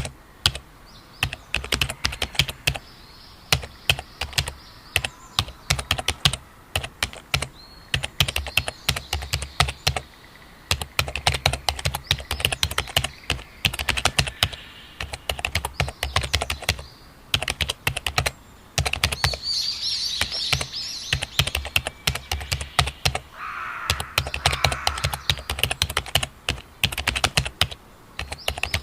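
Computer keyboard typing in quick runs of keystrokes broken by short pauses, with birds chirping faintly behind it and a clearer burst of birdsong about two-thirds of the way through.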